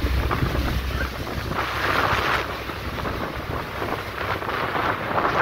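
Wind buffeting the microphone on the open deck of a motor yacht running through choppy water, over the steady rush of its wake and waves. The rush swells louder about two seconds in.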